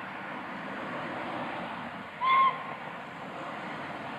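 Steam locomotive working with a steady rushing noise, giving one short whistle blast about two seconds in.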